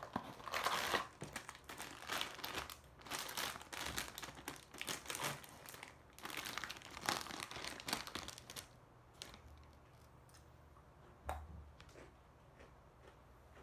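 Almond Pepero packaging being opened by hand: the cardboard box and its plastic inner pouch crinkled and torn in dense bursts for about eight or nine seconds, then quieter, with one sharp crack near the end.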